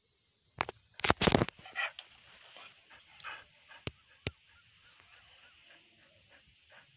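Indian Spitz barking: a loud cluster of barks about a second in, then a couple of softer barks over the next two seconds. Two short clicks follow.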